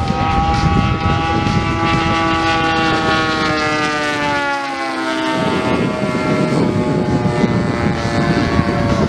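Engine and propeller of a radio-controlled scale-model Spitfire in flight, a steady buzzing drone whose pitch slides slowly lower as it flies past. About halfway through, the clear engine note fades into a rougher, rushing noise.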